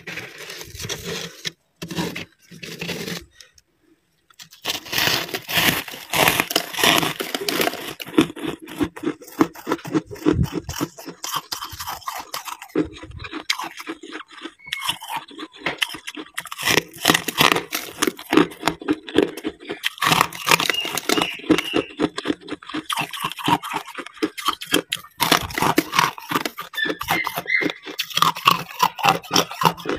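Thick freezer frost crunching and scraping in dense, rapid crackles. A few scattered clicks come first, and the crackling sets in about four seconds in.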